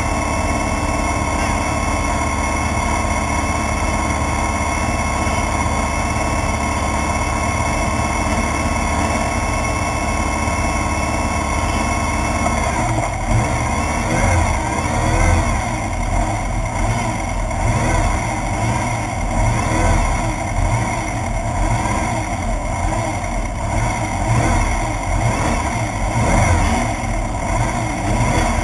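Air-cooled 1600cc VW engine of a Class 1/2-1600 desert race buggy idling steadily. About halfway through it revs up and pulls away, its pitch rising and falling as it drives.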